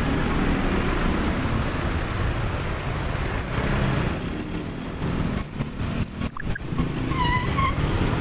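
Engine and road rumble of traffic heard from a moving motorbike in congested traffic among trucks and other motorbikes. The level dips for a couple of seconds, and a short high-pitched tone sounds near the end.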